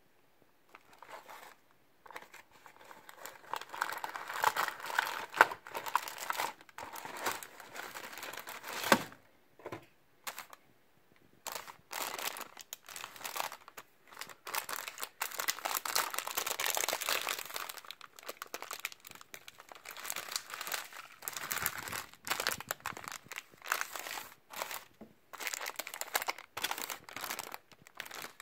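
Clear plastic wrapping and a plastic biscuit tray crinkling and rustling as they are handled and taken out of a cardboard box, in irregular bursts with short pauses. One sharper crackle comes about nine seconds in.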